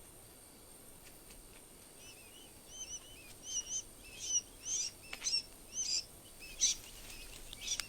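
Sandgrouse calling: a series of short, high, arched chirps, about two a second, starting about two seconds in over a faint background hiss.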